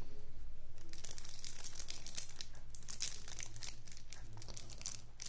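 Clear plastic shrink-wrap on a deck of cards crinkling and tearing as it is picked at and peeled off, crackling thickly from about a second in, over a steady low hum.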